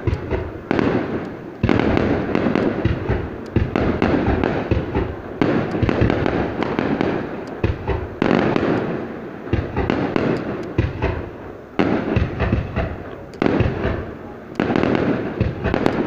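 Aerial fireworks display: repeated booming shell bursts, a fresh loud burst every second or two, with dense crackling in between.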